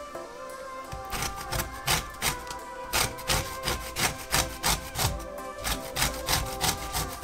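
Lemon being zested on a stainless-steel box grater: rasping strokes of the rind against the grater, about three a second, starting about a second in. Background music plays under it.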